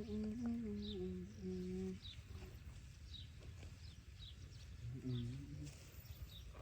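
Low, steady-pitched cooing calls: a phrase of several notes stepping down in pitch at the start, then a short call about five seconds in. Faint high chirps repeat about twice a second behind them.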